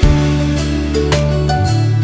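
Background music: gentle instrumental with plucked guitar over a steady bass line.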